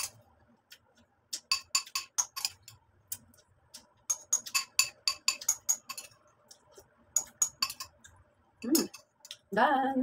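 Metal spoon clinking and scraping against a ceramic bowl, scooping up the last of the cereal and milk, in several quick runs of clinks.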